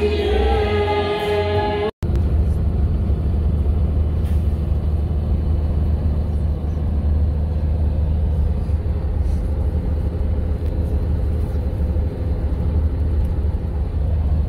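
About two seconds of singing, then it cuts abruptly to a city bus in motion, heard from inside the passenger cabin: the engine and road noise make a steady, even low rumble.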